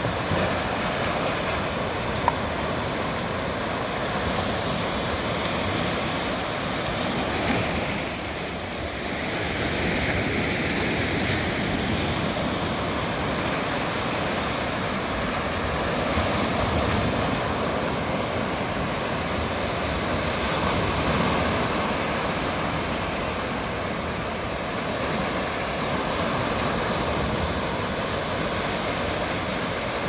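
Small sea waves breaking and washing over rocks along the shore: a steady rush of surf that swells and eases slowly.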